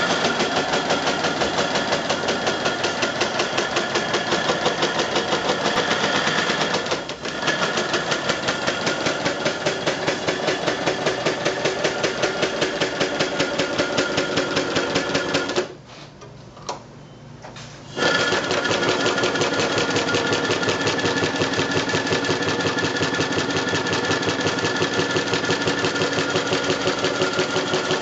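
A 3½-inch-gauge model Kerr Stuart tank locomotive running light with its wheels spinning clear of the rails on blocks, its cylinders beating out a fast, even exhaust rhythm. The beat stops a little past halfway and picks up again about two seconds later.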